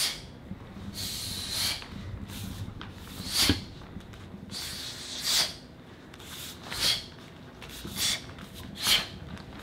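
A taekwondo uniform's sleeves swishing and snapping with each punch and block as a form is performed, about seven short swishes spaced a second or so apart.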